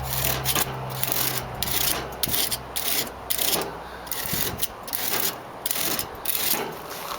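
A fin-straightening tool scraping along the aluminium cooling fins of an air-conditioner condenser. It is slid in between the fins and drawn up in quick, irregular strokes, prying the bent fins apart. A low hum fades out about two and a half seconds in.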